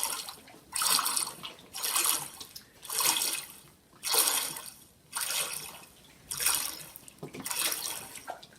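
Water splashing and sloshing in repeated surges, about one a second, as a bird is dunked and held underwater in a tub.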